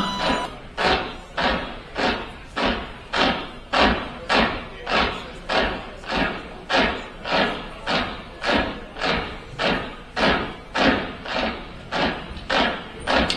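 Heavy thuds repeating evenly, a little under two a second, each followed by a short echo: a slow pounding beat played over a stage sound system.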